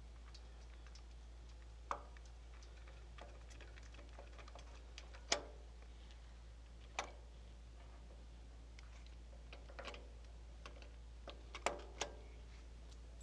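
Scattered sharp metallic clicks and clinks as an electric starter motor is handled and fitted back onto a mower engine and tools are picked up, with the loudest knocks about five seconds in and two close together near the end.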